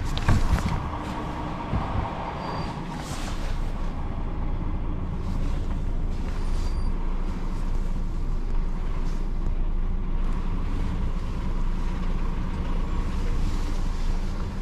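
Truck's diesel engine running steadily at low revs, heard from inside the cab, with a few short knocks about half a second in.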